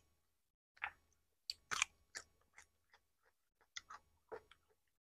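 Close-up eating sounds of a person chewing with an open mouth: about a dozen short, irregular wet smacks and clicks, the loudest about two seconds in.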